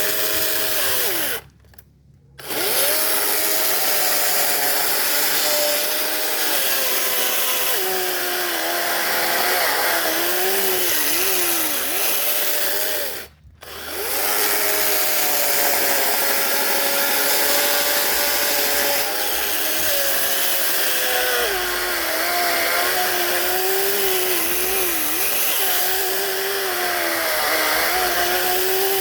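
Electric power saw cutting tree branches, its motor whine dropping in pitch as the blade bites into the wood. It stops dead twice, briefly near the start and again about halfway, then starts up again.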